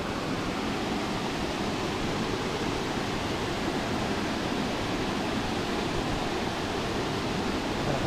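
Steady rush of a waterfall, water pouring over the rock lip at the top of the falls.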